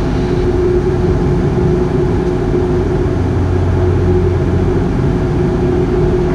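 Cabin drone of a Bombardier Q400's Pratt & Whitney PW150A turboprops and propellers during the climb after takeoff: a steady, loud hum with a held low propeller tone.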